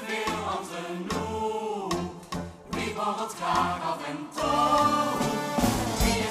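Music for a stage dance number: a bass line under a melody, growing louder about four and a half seconds in.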